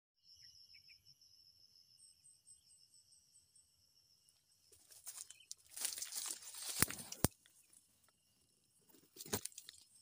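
Oil palm fronds and undergrowth rustling and crunching close to the microphone as someone pushes in among them, with two sharp clicks in the middle and another brief rustle near the end. Insects chirr steadily in high tones underneath.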